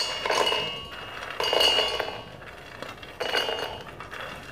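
Roasted makhana (fox nuts) tipped from a steel plate into a stainless-steel mixer-grinder jar in three pours, the light puffed seeds clattering against the steel with a faint metallic clink and ring.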